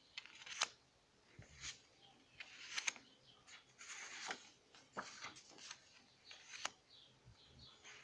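Faint rustling of paper cards and scrapbook sheets being handled, slid against each other and laid down on a pile, with a few sharp paper taps and clicks.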